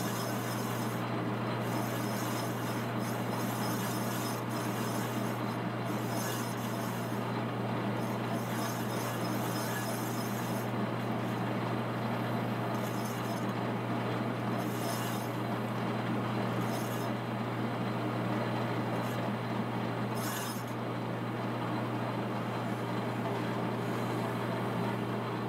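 Monarch engine lathe running with a steady hum while the boring tool cuts metal, blending out the contoured bore of a turbocharger compressor cover. Short, higher-pitched scraping moments come and go over the steady running.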